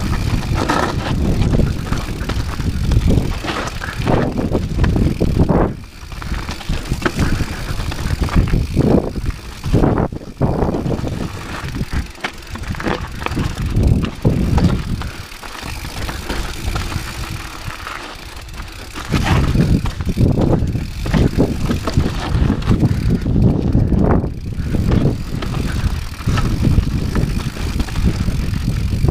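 Rocky Mountain 790 MSL mountain bike rolling fast down a rocky dirt trail: tyres crunching over dirt and stones, with frequent knocks and rattles from the bike as it hits rocks, over a continuous low rumble. It eases off to a quieter, smoother stretch about halfway through, then picks up again.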